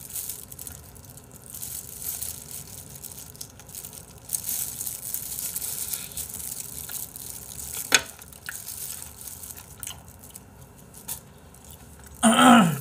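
Close-up crunching and chewing of crispy BBQ Golden Olive fried chicken, with one sharp click about eight seconds in.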